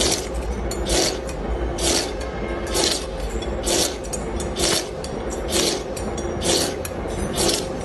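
Rhythmic scraping strokes, about one a second, over a steady low hum.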